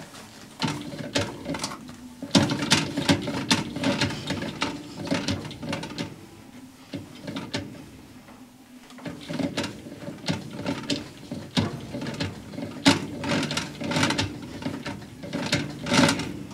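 A 1994 Kenmore 70 series direct-drive washer agitating with an empty tub: a quick run of clicks and knocks as the repaired agitator swings back and forth, with a pause of about two seconds midway. The agitator is working again after its agitator dogs were replaced.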